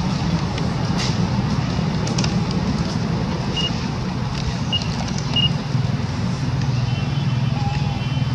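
Steady low drone, like a running motor or road traffic, with a few faint short high chirps about halfway through.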